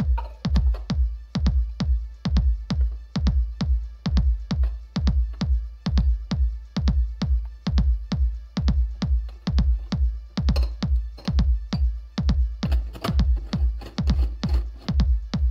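Electronic background music with a steady beat and a heavy bass pulse.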